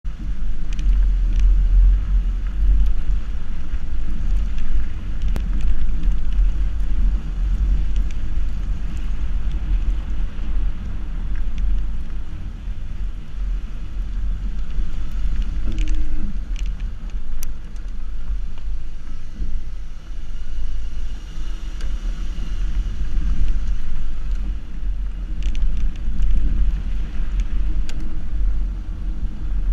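Subaru XV driving along a dirt track, heard from a camera mounted outside beside the front wheel: a steady low rumble of the tyre rolling on dirt and air buffeting the microphone, with occasional small clicks.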